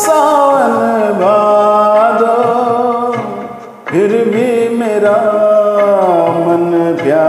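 Man singing a Hindi film song over a karaoke backing track, holding long notes that glide in pitch; the singing drops away briefly about four seconds in, then comes back.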